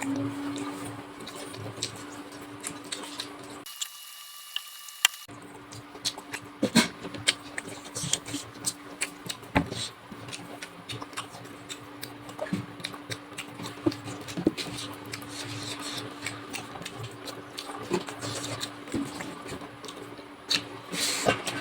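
Close-miked eating sounds of chicken curry and rice: chewing with wet smacks and sharp mouth clicks, scattered irregularly throughout.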